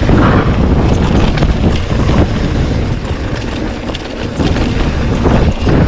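Wind buffeting the microphone during a fast mountain-bike descent, mixed with tyre noise on dirt and knocks and rattles from the Pivot Switchblade as it runs over rough ground. The noise eases briefly a little past the middle.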